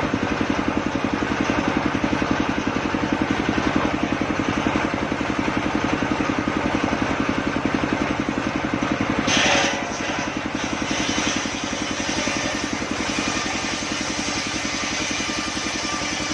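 Engine of a homemade circular-saw sawmill running steadily with a fast, even pulse. About nine seconds in there is a brief harsher burst, and the sound eases slightly afterwards.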